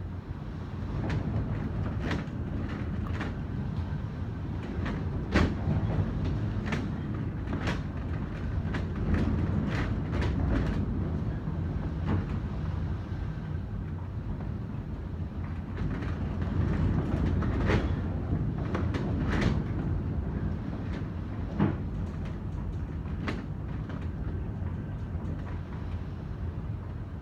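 Strong typhoon wind: a steady low rumble with irregular sharp knocks and rattles scattered through it.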